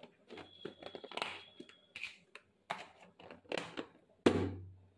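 Plastic food-storage containers and their lids being handled and pressed shut: a run of clicks, rustles and small knocks, then one loud knock a little past four seconds in.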